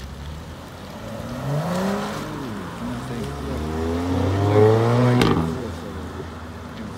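Cars driving off one after another, their engines revving up and falling back between gears. The loudest is a hatchback accelerating close past about four to five seconds in, with a sharp crack as it goes by.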